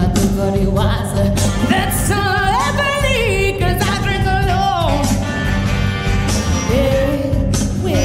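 A song with a lead vocal over a band backing with a steady low beat; the voice holds long notes that slide and bend in pitch.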